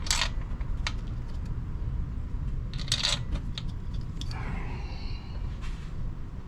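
A handful of light metal clicks and clinks with some rubbing, as mounting bolts are handled and started by hand into a DD15 engine's oil/coolant module. A cluster of clicks comes about three seconds in, all over a steady low rumble.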